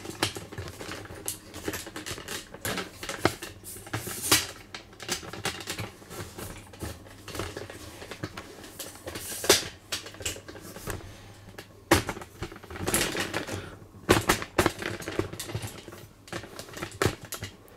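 Irregular clicks, taps and knocks of handling: tools and objects being picked up and moved about, with a few louder knocks near the middle and later on.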